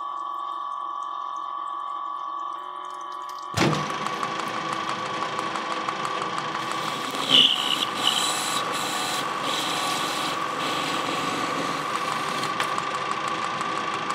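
Metal lathe running with a steady whine and flood coolant pouring. About three and a half seconds in, a parting tool bites into the spinning steel part, and a dense, hissing cutting sound takes over, with a couple of sharper peaks around the middle.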